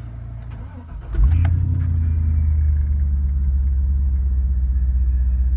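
2003 GM truck's engine started: a short spell of starter cranking, then it catches about a second in with a brief rise in revs and settles into a steady idle.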